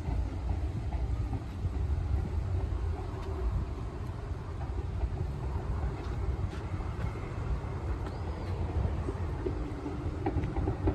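A steady, noisy low rumble with no clear tone in it, with a faint rising-and-falling whistle about eight seconds in.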